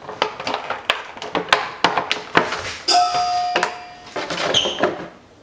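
Clear plastic bag crinkling and rustling as it is handled to get out the action figure's spare hands, with sharp small clicks throughout. About three seconds in, a steady high tone is held for about a second.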